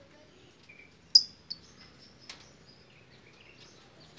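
Caged lovebirds chirping: one sharp, loud, high chirp about a second in, then a few fainter chirps and a click.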